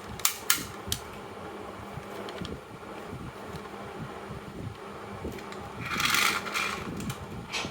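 Marbles rolling and clattering down a wooden marble run, with a few sharp clicks of marbles striking each other or the track in the first second and a steady rolling rumble after. About six seconds in comes a louder, brief rattling noise.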